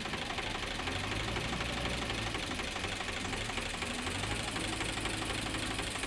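Diesel engines running with a steady clatter: a Powertrac tractor idling close by and a JCB 3DX backhoe loader working its arm behind it. The low engine note grows louder about a second in and again past four seconds.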